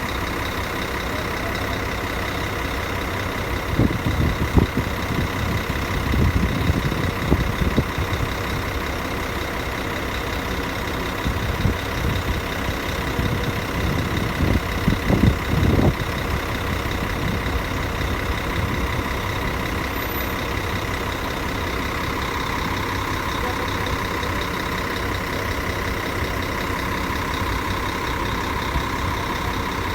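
Diesel engine of an Expresso Guanabara coach bus running, mostly at a steady idle with a constant whine over the rumble. Between about 4 and 16 seconds there are irregular louder low surges. The whine grows stronger from about two-thirds of the way in.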